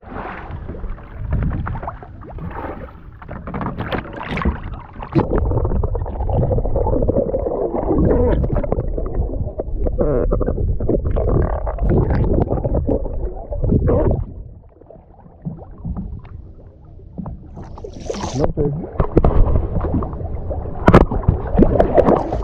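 Water splashing and gurgling around a camera dipped at the surface and under it, muffled and rumbling while underwater, as a hooked cobia thrashes beside the boat. Sharp splashes or knocks stand out twice near the end.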